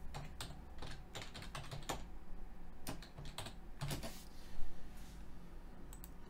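Typing on a computer keyboard: irregular keystrokes, with one louder knock about four and a half seconds in.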